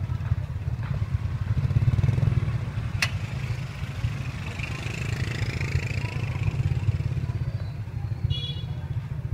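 Street ambience: a steady low rumble of motorbike traffic, with one sharp click about three seconds in.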